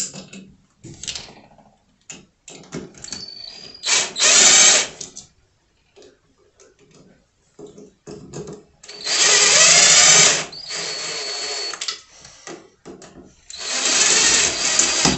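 Cordless drill/driver driving screws into a metal switch box: three short runs of the motor whirring, about a second in length each, the middle and last ones a little longer, with small clicks and handling noise between them.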